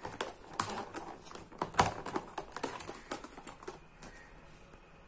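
Plastic handling clicks: a disposable plastic compartment tray holding scissors and a thread spool is handled and set aside. Irregular light clicks and knocks come from it, the loudest about two seconds in. They die away after about four seconds.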